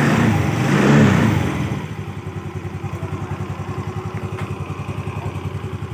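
Yamaha Xeon scooter's single-cylinder engine and CVT, revved briefly and then settling into a steady idle with an even pulse. It runs normally, without the rattling bearing noise, now that the worn pulley bearing has been replaced.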